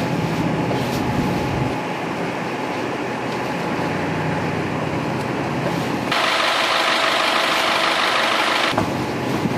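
Box truck's engine idling steadily. About six seconds in the sound shifts to a louder, higher steady whir for nearly three seconds, then drops back to the idle.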